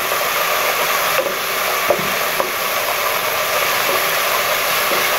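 Chopped onion, tomato and green chilli sizzling steadily in a little oil in a non-stick pan while being stirred with a wooden spatula, with a couple of light spatula taps about two seconds in.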